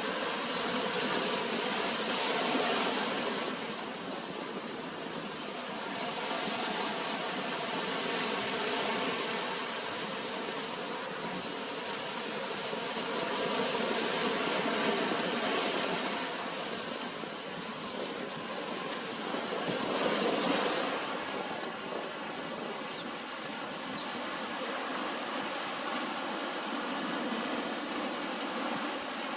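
Ocean surf breaking and washing up on a beach: a steady rush that swells and eases every several seconds, loudest about twenty seconds in.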